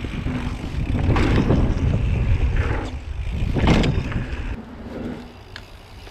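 Mountain bike riding along a dirt trail: wind rushing over the camera microphone mixed with the rumble of knobby tyres over dirt and a wooden boardwalk, swelling louder about a second in and again near four seconds, then easing off.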